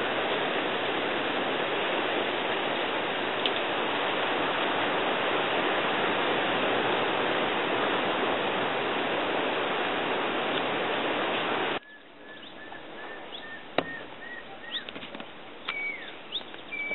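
Steady, loud rushing noise that cuts off abruptly about twelve seconds in. A quieter outdoor background follows, with a bird's short chirps repeated several times and a few higher gliding calls near the end.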